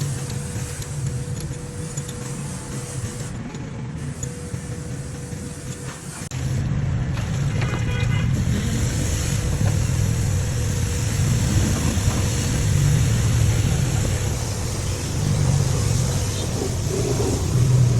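2005 Ford Escape engine sound: a steady low hum with a faint whine, then about six seconds in a louder engine sound starts suddenly and keeps going with a pulsing low throb.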